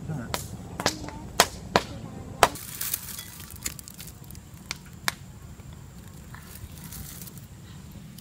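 Dry twigs and grass snapping as they are broken and stuffed under a brick stove to light a fire: about five sharp snaps in the first two and a half seconds, then a rustle and a few fainter cracks.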